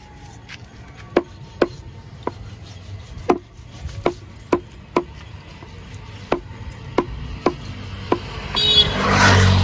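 Knife chopping pork on a wooden block: sharp single knocks at an uneven pace of about two a second. Near the end a louder rushing noise with a low hum swells up over it.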